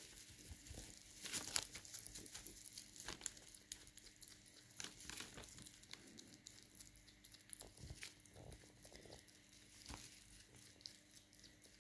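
Faint, scattered crinkling and rustling of newspaper, with small clicks, as a hedgehog shifts about on it.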